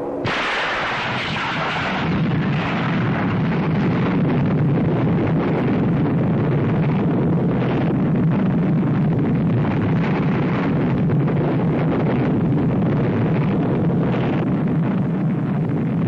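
Atomic bomb explosion sound effect on an old film soundtrack: a sudden blast a fraction of a second in, then a loud, steady rushing rumble that carries on unbroken.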